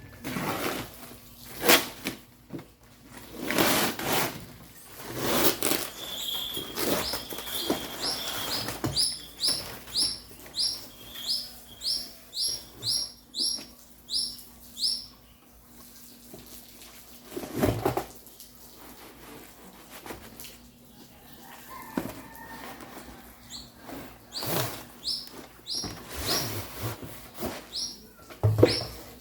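A bird chirping in runs of short, high, rising chirps, about two a second, with loud rustling and knocks of things being handled, mostly in the first few seconds.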